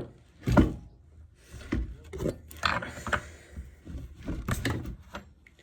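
Handling noises from working on a chainsaw: a series of knocks and scrapes, the loudest a thump about half a second in.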